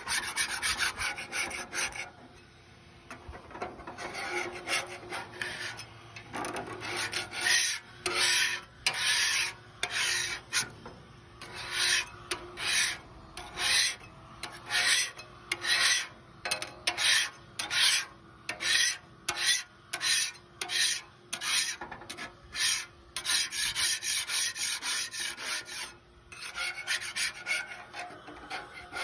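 Flat metal scraper blade pushed by hand in repeated strokes across the rusty steel top of a 36-inch Blackstone griddle, scraping off loose flaking rust. The strokes come about one or two a second, with a short pause about two seconds in.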